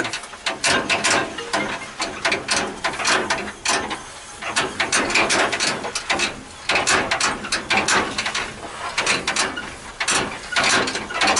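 Taylor-Dunn electric utility cart driving over bumpy grass, its body and chassis rattling and clattering in a dense, irregular run of knocks.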